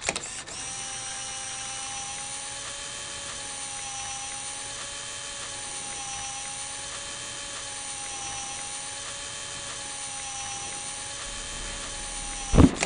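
A steady mechanical whirring drone made of several held tones that waver slowly up and down. Near the end it is cut by two sharp, loud clicks.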